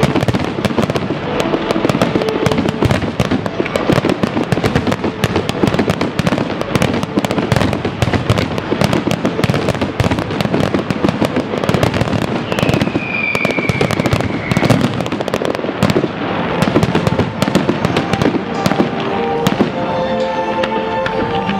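Fireworks display: a dense, continuous barrage of shell bursts and crackle, with one high falling whistle a little past halfway. As the barrage thins near the end, music comes through underneath.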